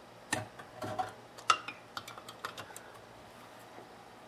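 Click-type torque wrench being worked on a small engine's connecting rod bolts: a few sharp metallic clicks, the loudest about a second and a half in, then a quick run of light ratchet ticks. The wrench clicks when the bolt reaches its set torque of 100 inch-pounds.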